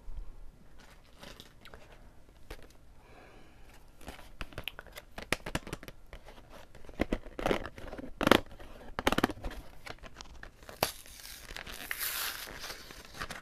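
Crinkling and crackling of a plastic blister pack of dry-erase markers being handled and torn open, with scattered sharp clicks and a longer tearing rustle near the end.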